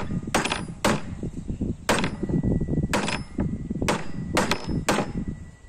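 Wooden mallet with a square hardwood head and dowel handle striking wood on the workbench: about eight sharp knocks at uneven intervals, some in quick pairs, over a steady low rumble.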